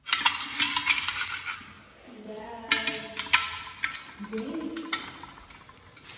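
Metal clinking and clattering: a quick run of sharp clicks and knocks that starts suddenly, is densest in the first three and a half seconds, then fades out.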